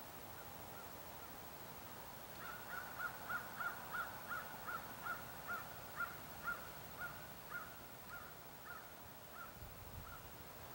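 A bird calling a long run of short, clipped notes, about four a second at first, then slowing and fading out over several seconds, over a faint steady hiss.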